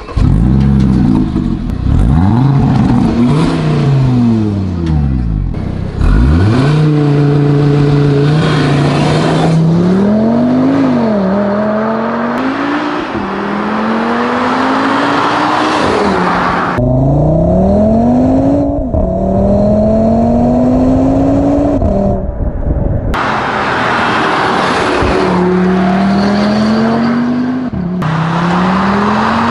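Audi RS Q3's turbocharged five-cylinder engine and exhaust, first blipped so the revs jump and fall back, then pulling hard through the gears as the car drives by, its pitch climbing and dropping at each upshift. The sound changes abruptly several times where separate runs are cut together.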